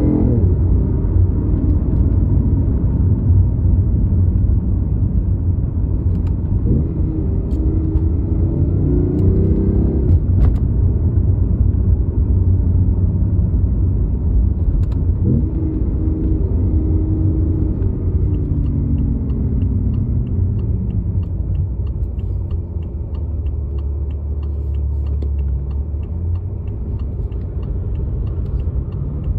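BMW i8 hybrid sports car driving, with a steady low rumble of engine and road. The engine note climbs twice as the car accelerates, about a quarter and about half way through, then eases off. A fast, even, light ticking joins for the last ten seconds or so.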